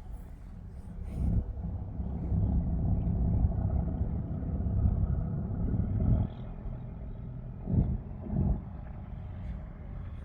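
Strong gusty wind buffeting the microphone: a low rumble that swells about a second in, holds for several seconds and drops near six seconds, then two short gusts near eight seconds.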